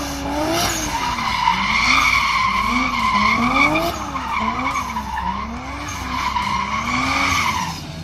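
Rear tyres of a turbocharged 2JZ straight-six Lexus IS300 squealing steadily through donuts, the engine revving up and down about once a second. The squeal and revving stop shortly before the end.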